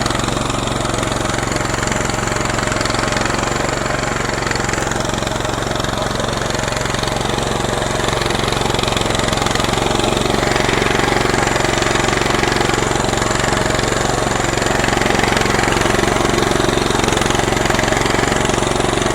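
Salyut-100 walk-behind tractor's engine running steadily.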